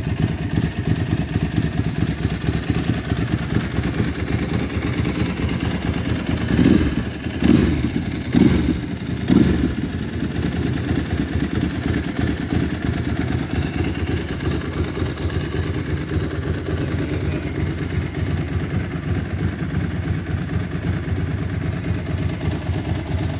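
Ducati 999S's 998 cc L-twin idling with a steady lumpy beat, its throttle blipped four times in quick succession about a third of the way in before it settles back to idle.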